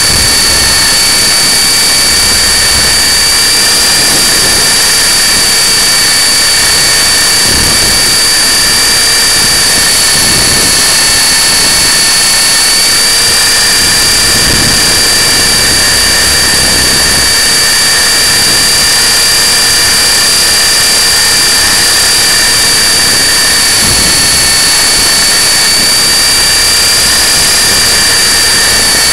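E-Sky Honey Bee King 3 RC helicopter's electric motor and rotors, heard at very close range from a camera mounted on the helicopter: a loud, steady high-pitched whine over a rushing noise. The pitch steps slightly up and down a few times.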